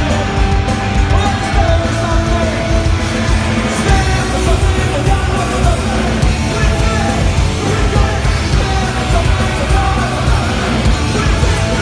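A punk rock band playing live and loud: shouted vocals over electric guitar, bass and drums, recorded from within the crowd.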